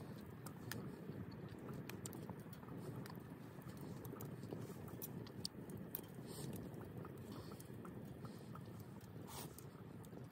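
Wood campfire crackling, with sharp scattered pops over a steady low rush.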